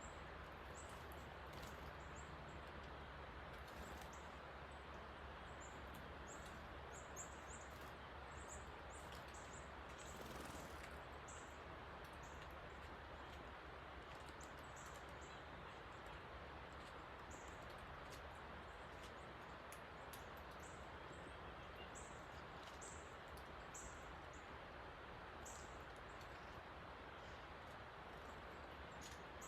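Rain-swollen creek rushing steadily, high after heavy rain, with small birds giving many short, high chirps throughout.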